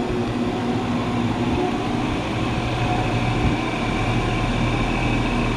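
Outdoor unit of a 2001 Heil Performance 10 3.5-ton heat pump running steadily just after coming out of defrost: compressor hum with the condenser fan back on.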